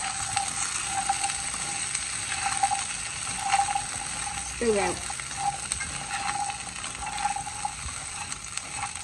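Chickpeas frying in hot oil with spices, sizzling steadily while a spatula stirs them around the wok, scraping the pan.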